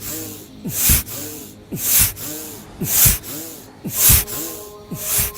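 Rhythmic forceful breathing in a yogic breathing exercise, a loud hissing rush of air about once a second.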